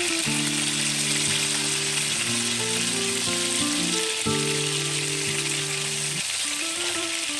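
Fish frying in hot oil, a steady dense sizzle. Soft sustained background music chords change every couple of seconds underneath.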